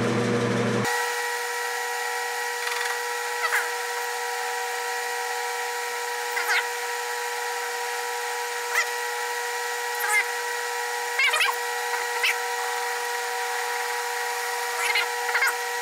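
Enco metal lathe running under power with a steady gear whine of several fixed tones. The cutting tool is hand-fed into a steel bar for a test cut, with brief squeaks now and then.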